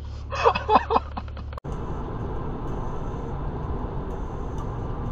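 Steady road and tyre noise of a car cruising on a freeway, heard from inside the cabin. It starts abruptly about one and a half seconds in, right after a brief burst of a person's voice.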